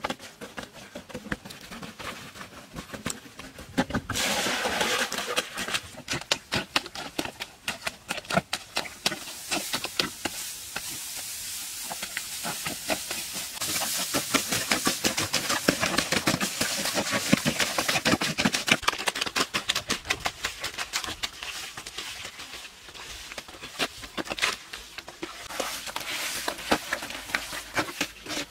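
Bare feet trampling wet mud mixed with straw: many squelches and slaps, with straw rustling and a thicker wet churning in two longer stretches. Near the end, handfuls of mud are slapped and packed by hand.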